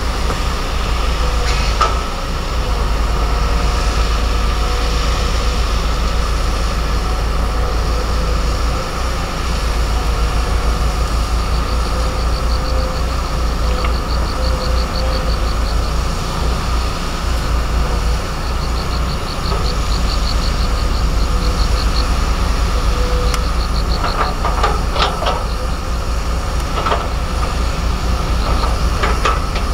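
Volvo EC210DL tracked excavator's diesel engine running steadily under load with a low rumble while it digs and loads dirt into a dump truck. A few sharp clanks come near the end.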